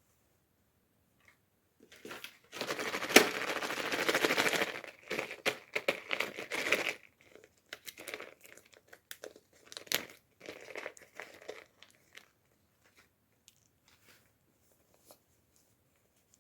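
Packaging being crinkled and torn open by hand: a few seconds of dense crinkling and tearing, then scattered lighter crackles with a couple of sharp clicks.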